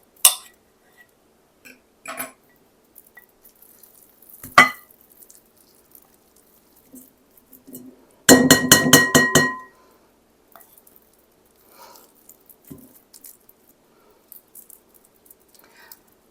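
A utensil knocking and clinking against a ringing bowl while food is scraped and moved: a few separate knocks, then a quick run of about six ringing taps a little past halfway through, as if a spoon is being knocked clean on the bowl's rim.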